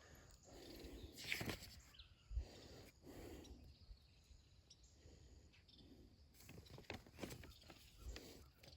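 Near silence broken by faint rustles and a few small knocks and clicks of compost-tumbler parts being handled during assembly.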